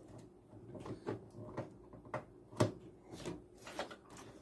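Irregular light clicks and knocks, about a dozen, the sharpest a little past halfway: computer hardware and cables being handled while a newly fitted PC power supply is readied for testing.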